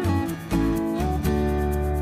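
Background music on acoustic guitar, with plucked notes changing quickly, then a chord ringing on from about halfway through.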